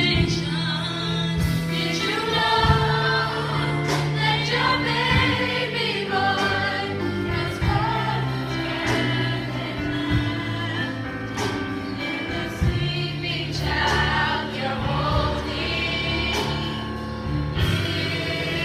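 Church choir singing gospel music, with instrumental accompaniment of sustained bass notes and scattered percussion hits.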